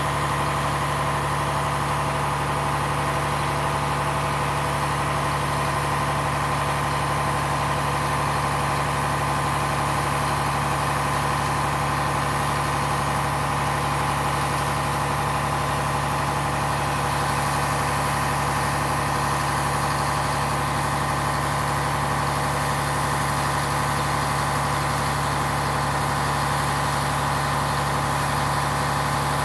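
Truck engine running steadily to drive the hydraulics of an Effer 210 6S knuckle-boom crane while its extended boom is moved, an even drone with a steady higher whine over it.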